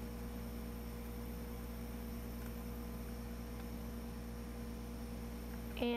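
Steady low electrical hum with a faint even hiss and a thin steady tone: background noise of the room and recording equipment, with no other sound.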